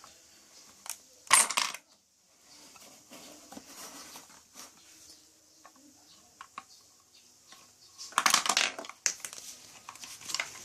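Marbles clattering through a Lego marble-dispensing machine: two loud rattling bursts, about a second and a half in and again about eight seconds in, with lighter clicks of plastic parts and marbles between.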